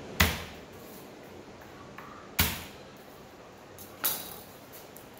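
Palm striking the flat of a kitchen knife laid on garlic cloves on a plastic cutting board, three sharp smacks about two seconds apart. The blows crush the cloves so that the skins come loose for peeling.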